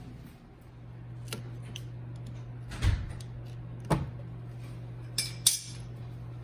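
A few short, sharp clicks and clanks of tools and parts being handled, the last two close together, over a steady low hum.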